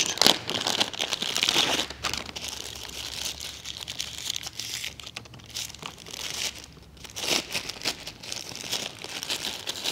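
Plastic packaging crinkling as it is handled and pulled open, loudest in the first couple of seconds, then softer scattered crinkles with another burst about seven seconds in.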